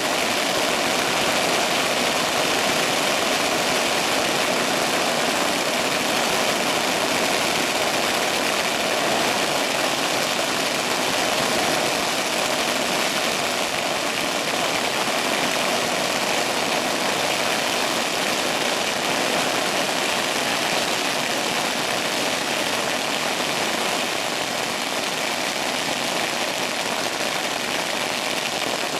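A huge string of firecrackers going off in one continuous dense crackle, the bangs too close together to pick out singly, steady in loudness and easing slightly near the end.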